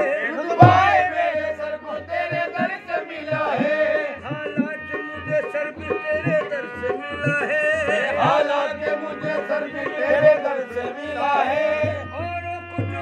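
Qawwali music: a harmonium plays a sustained melody over a steady beat of hand-drum strokes, with men's singing voices coming in about a second in and again around eight seconds.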